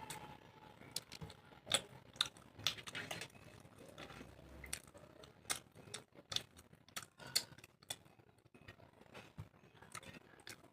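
Close-miked eating: chewing with irregular sharp mouth clicks and smacks, several a second at times.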